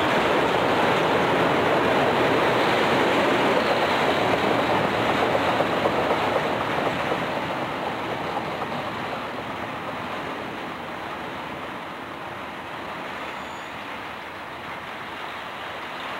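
Freight cars rolling past on the rails, a steady rolling noise from the wheels and car bodies that fades from about six seconds in as the rear of the train moves away.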